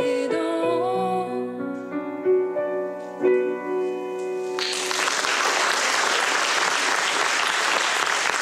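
A last sung note with vibrato ends about a second in over sustained piano chords, which ring on and stop about halfway through. Audience applause then starts and carries on steadily.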